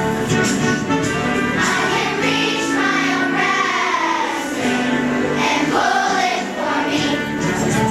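A choir singing, several voices moving together over held lower notes.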